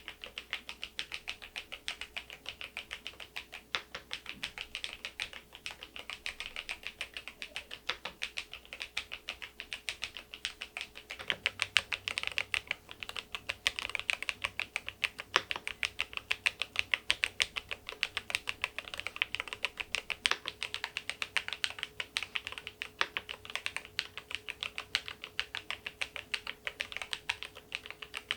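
Continuous fast typing on a Keysme AIM04 HE aluminium keyboard with magnetic (Hall-effect) switches: a steady stream of keystroke clicks that gets louder from about eleven seconds in.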